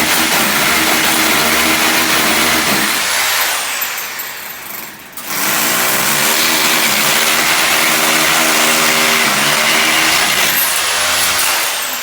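Electric drill boring into a wall, raising dust, its motor pitch wavering under load. It runs, stops briefly about four seconds in, then starts again and runs until shortly before the end.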